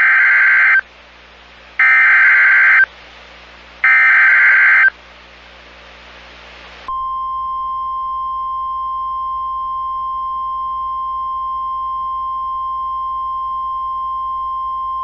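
Emergency Alert System SAME header: three loud one-second bursts of warbling digital data tones, about a second apart. About seven seconds in, a steady single-pitch alert tone begins: the NOAA Weather Radio 1050 Hz warning tone, which marks the start of a new weather alert.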